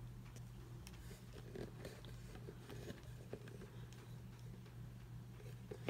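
Faint scattered clicks and rustles of hands handling things, over a steady low electrical hum.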